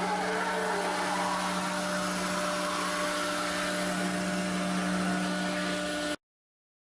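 9 kW spindle of a foam-milling CNC router running at speed, a steady whine over a broad hiss, with a short shifting tone about a second in. The sound cuts off suddenly about six seconds in.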